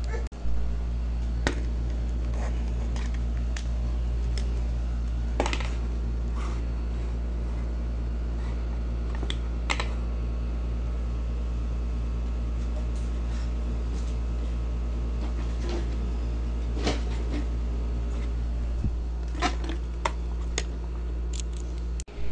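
A steady low hum runs throughout, with scattered light clicks and taps every second or few.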